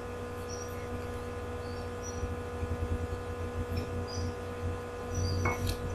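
Steady background hum with several evenly spaced tones, and faint short high-pitched chirps now and then.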